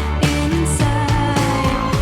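Midtempo bass electronic track: a heavy sustained bass line under a steady drum beat of about four hits a second, with a held melody line on top.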